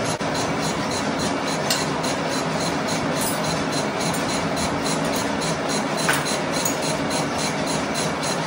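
Manual lathe cutting the end face of a heavy metal spindle, with coolant splashing over the spinning work. It makes a steady hissing and rumbling cutting noise with a faint regular pulse several times a second, and a short sharp clink about six seconds in.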